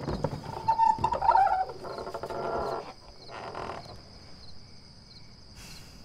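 Crickets chirping steadily through the night air, with an old wooden double door creaking as it is swung open about a second in.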